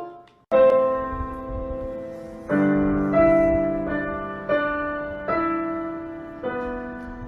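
Piano music: slow chords struck every second or two, each ringing on and fading away.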